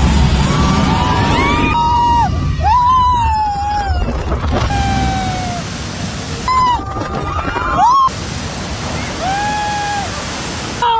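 Rushing, splashing water as a water-ride boat plunges down the drop into the pool, with shrieks and yells of riders over it. The first two seconds hold a low rumble.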